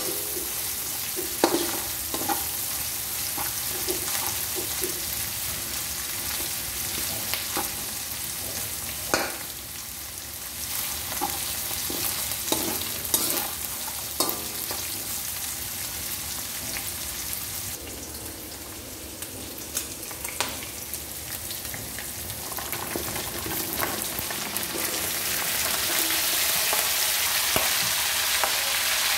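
Ground pork with garlic and onion sizzling in a steel wok, stirred with a spatula that scrapes and knocks against the pan now and then. The sizzle grows louder over the last several seconds.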